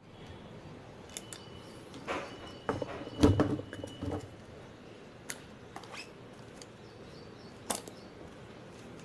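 Metal lever-release ice cream scoop scraping and clicking against firm vanilla ice cream in a plastic tub, with a louder knock about three seconds in and a few sharp clicks after.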